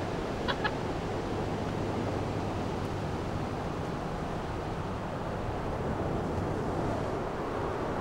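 Ocean surf and wind on the microphone, a steady rushing noise, with two short high-pitched sounds close together about half a second in.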